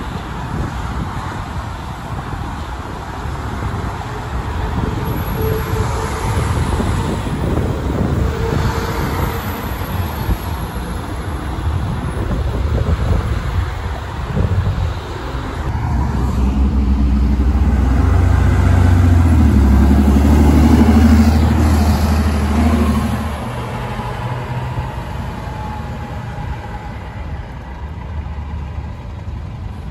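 Street traffic, with a heavy bus engine growing loud as it passes close a little past the middle, then dropping away.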